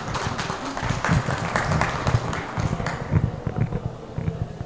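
Audience clapping, dense and uneven, fading toward the end, with a little murmuring underneath.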